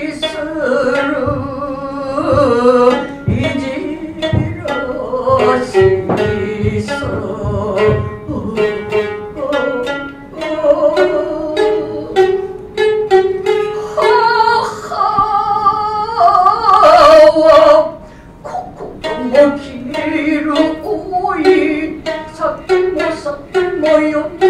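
Gidayū-bushi music of Awa puppet theatre: a futozao shamisen struck in sharp, repeated plucked strokes, with the chanter's drawn-out sung voice bending in pitch in places.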